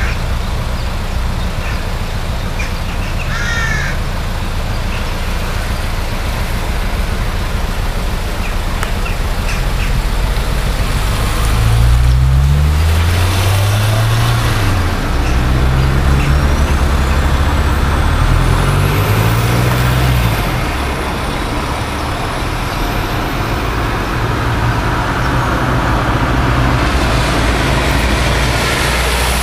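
Car engine running as the car moves slowly, its note rising and falling a few times about halfway through as it accelerates and eases off, over a steady rushing noise of water. A bird calls twice near the start.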